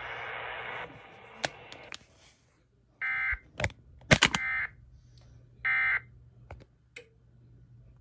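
The noisy, radio-received tail of an Emergency Alert System warning message ends about a second in. Then three short buzzing data bursts follow, a little over a second apart: the EAS end-of-message code received by a TFT EAS 911 decoder. Sharp clicks fall among the bursts, the loudest just after the second one.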